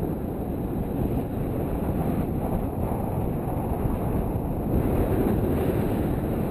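Wind rushing over the microphone of a selfie-stick camera in flight under a tandem paraglider: a steady low rumbling rush with no breaks.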